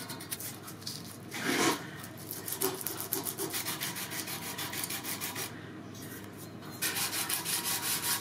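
Metal sword blade being rubbed down by hand with an abrasive: quick, rhythmic rubbing strokes, with a louder burst about a second and a half in and louder strokes near the end.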